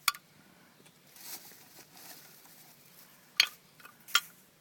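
Old brake parts being handled, giving three sharp clacks: one at the start and two close together near the end.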